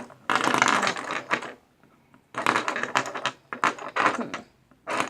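Loose plastic Rubik's cube pieces clicking and rattling as they are handled and sorted through by feel, in several short spells of rapid clicks with brief pauses between.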